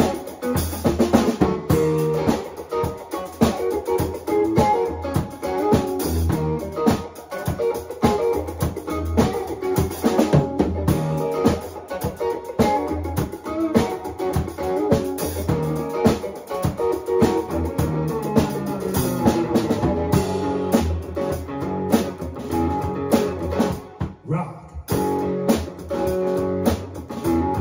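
Band playing a song live: drum kit with electric guitar, with a short break about twenty-four seconds in before the full band comes back in.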